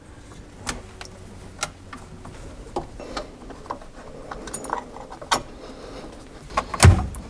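Scattered small clicks and knocks of a dishwasher drain hose and its fitting being worked loose from a garbage disposal's side inlet, with a louder knock near the end.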